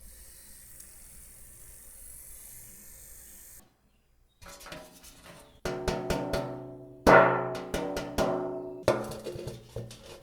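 Faint hiss at first, then after a short silence a run of sharp metallic clatters and hits, each ringing out and fading. These are sounds of a DC motor scraping on an old metal can. The loudest hit comes about seven seconds in.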